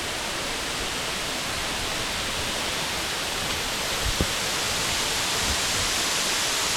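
Waterfall swollen by heavy rain, a steady loud rush of falling water.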